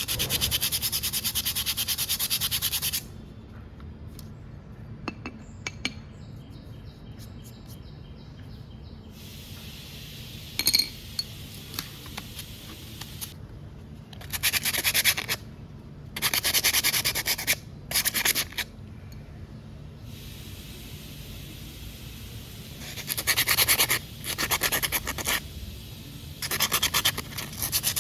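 Sandpaper rubbing back and forth on a new Royal Enfield Himalayan 411 rear disc brake pad in quick strokes. The strokes come in several bouts of a few seconds, with pauses between. It is being done to sand down a pad surface that has gone hard and makes a noise against the disc.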